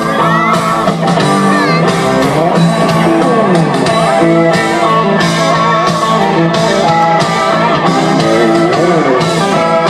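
Live country band playing an instrumental passage: an electric guitar lead with bent notes over a steady drum beat and cymbals.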